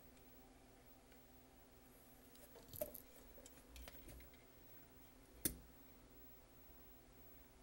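Quiet handling of a partly disassembled VCR: a few light clicks and taps around three to four seconds in, then one sharper click about five and a half seconds in, over faint steady room hum.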